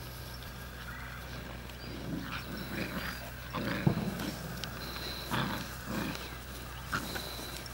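Newfoundland puppies vocalising in a string of short bursts while they play-fight, starting about two seconds in and loudest about four seconds in.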